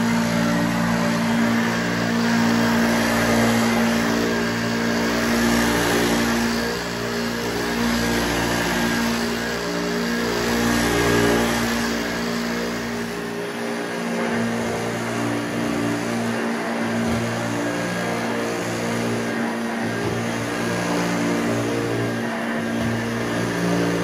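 Hoover Junior Exclusive U1206 upright vacuum cleaner running while it is pushed over carpet: a steady motor hum and whine over a rushing hiss, somewhat fainter from about halfway through as the machine moves away.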